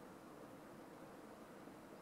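Near silence: faint, steady outdoor background noise with no distinct events.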